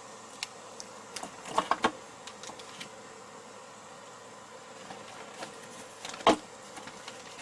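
Scattered short knocks and clicks over a faint steady hum: a quick cluster of three knocks a little under two seconds in, and one loud knock about six seconds in.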